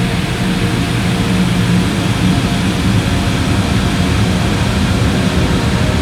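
Heavy shoegaze song slowed down into an ambient drone: a dense, steady wall of sound with low held tones.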